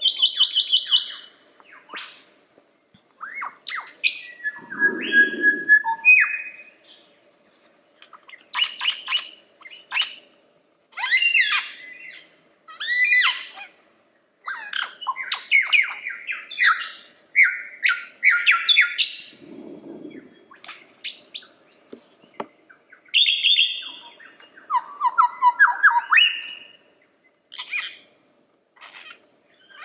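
Lyrebird singing a loud, varied song: held whistles, downswept notes and rapid chattering runs of repeated notes, in bursts with short gaps. Two low, muffled sounds come in about five seconds and twenty seconds in.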